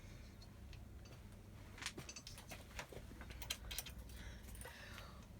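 Faint, scattered metallic clicks and ticks of an Allen key working the countersunk bolts of a 3D printer's Z-axis stepper motor mount, over a low steady hum.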